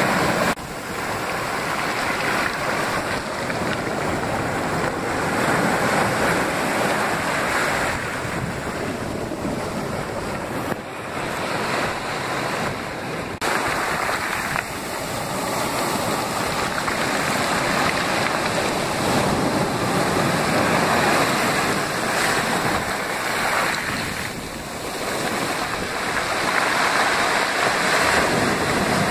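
Ocean surf washing in over basalt rocks and pebbles at the shoreline and drawing back: a continuous rush of water that swells and eases with each wave.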